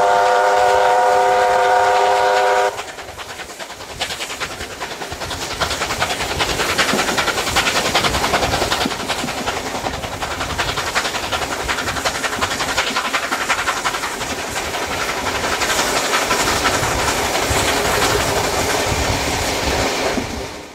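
Steam whistle of locomotive 3801 blowing one steady blast for nearly three seconds, then cutting off sharply. After it come the rumble and clickety-clack of the carriage wheels over the rail joints, heard through an open carriage window and getting louder as the train runs on.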